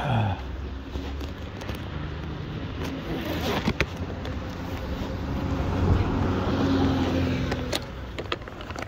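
Double-decker bus engine and street traffic running, growing louder as the bus draws near and peaking about six seconds in. A short falling tone sounds at the very start.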